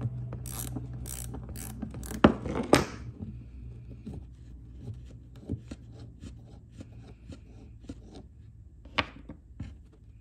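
Ratchet wrench clicking in quick runs, with two louder clacks, as bolts come off an old lawn mower carburetor. Then lighter clicks and taps of small metal parts on a wooden workbench, with one sharper knock about nine seconds in.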